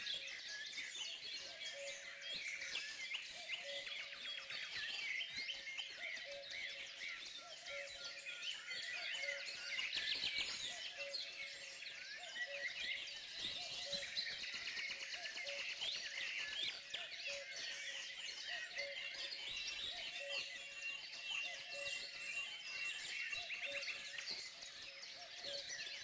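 Faint chorus of small songbirds, many overlapping chirps and trills, with a soft low note repeating about once a second beneath them.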